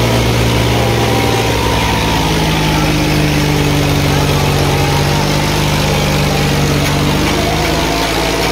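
Diesel tractor engines of an Eicher 5660 and an Arjun Ultra 555 running hard under heavy load as the two tractors pull against each other in a tug-of-war: a loud, steady low drone that holds its pitch, shifting slightly near the end.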